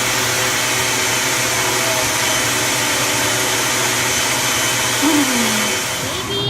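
A small electric motor running steadily with a rushing, hissing noise and a low hum.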